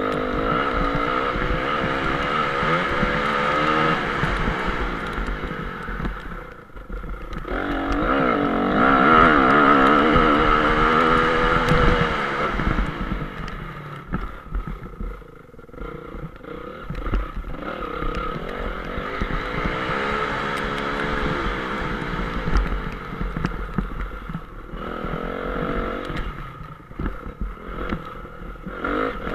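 2014 Honda CRF 250 dirt bike's single-cylinder four-stroke engine, heard onboard, revving hard and backing off over and over as it is ridden around a motocross track. The throttle is chopped sharply about 7 seconds in, again around 15 seconds and near the end.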